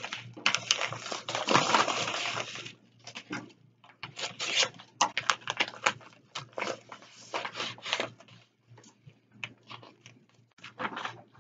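Paper rustling and crackling as a manila bid envelope is torn open and its pages are pulled out and handled, in a run of irregular rustles that is densest in the first few seconds and then comes in shorter scattered bursts.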